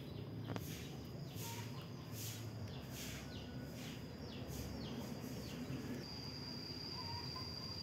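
Outdoor garden ambience: a steady high-pitched insect drone that grows louder about six seconds in, with short falling bird chirps scattered through the first few seconds.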